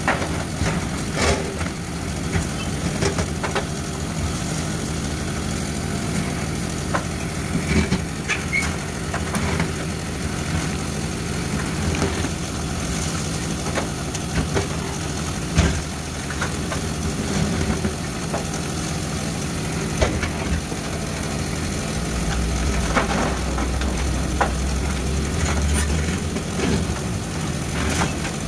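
Tracked demolition excavator's diesel engine running steadily while its hydraulic jaws break up a concrete-block wall, with irregular cracks and thuds of concrete and rubble falling. For a few seconds near the end the engine note grows louder and deeper.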